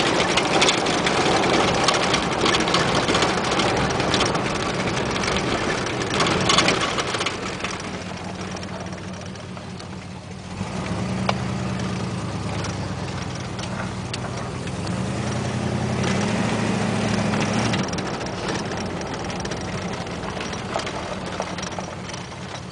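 The 472 big-block V8 of a 1973 Cadillac Calais heard from inside the cabin while driving on a dirt road, with loud tyre and road noise over the first several seconds. In the middle the engine note rises twice as it pulls, then drops back to a lower steady run near the end.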